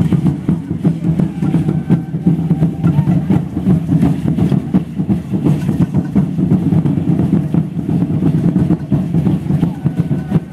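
Aztec ceremonial drumming: large drums beating a rapid, dense rhythm for the dancers.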